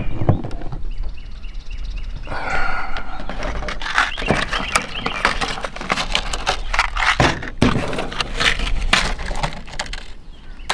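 Handling noise as hands work with wires and a plastic cable-entry cover on a truck's aluminum roof: irregular clicks, taps and scrapes over a low steady rumble.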